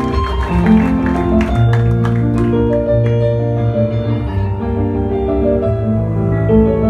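Slow instrumental music: a keyboard melody over long held bass notes.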